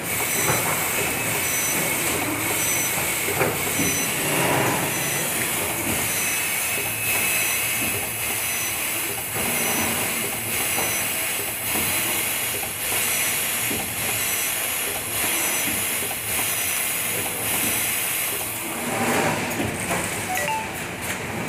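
Armature commutator welding machine running: a steady mechanical hiss with a short high tone repeating about twice a second and light ticks.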